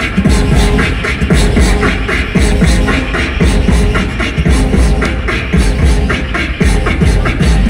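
Beatbox group performing live over a concert PA: a steady, rhythmic beat of vocal kick and snare sounds with held vocal tones underneath.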